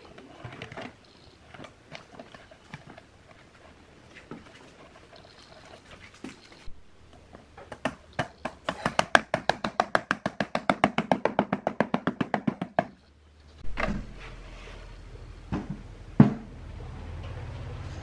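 Hand tools working on a speaker cabinet: scattered scrapes and knocks, then a fast, even run of sharp clicks, about ten a second, lasting some five seconds. After the clicks comes a low steady hum with a few sharp knocks.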